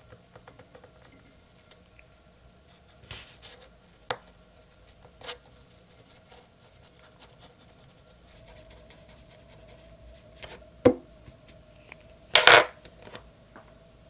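Small sounds of watercolor painting: a fine brush faintly scratching and tapping on paper. Near the end comes a sharp knock, then a louder brief scraping clatter.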